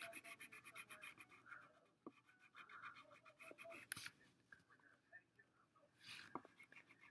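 Faint scratching of a wax crayon rubbed back and forth on paper while colouring in, with a few soft clicks.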